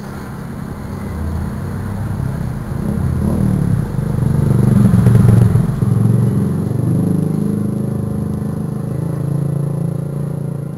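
A motor vehicle engine passing by, growing louder to a peak about five seconds in and then slowly fading.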